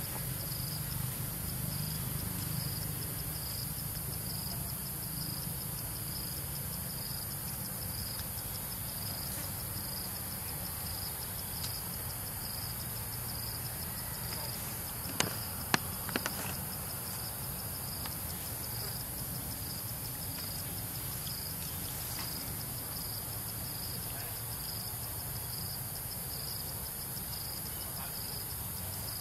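Insects droning steadily in the forest, with a high buzz that pulses about once a second over a constant high hiss. A few sharp clicks stand out about halfway through.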